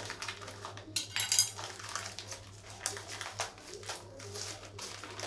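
A cardboard shipping box being opened and handled after its tape was cut with a kitchen knife. Scrapes, rustles and knocks, with the sharpest knocks about a second in.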